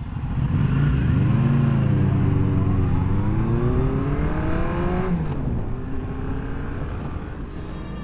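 Sportbike engine heard onboard. The revs rise and fall once, then climb steadily through a gear and drop abruptly at an upshift about five seconds in, carrying on at lower revs.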